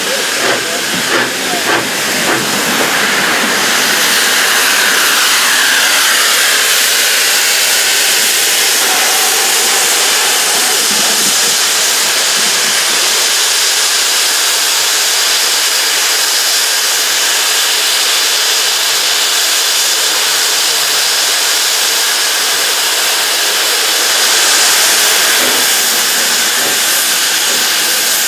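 Steam tank locomotives, including the Stroudley A1 Terrier 'Fenchurch', blowing off steam with a loud, steady hiss. A few knocks sound in the first couple of seconds.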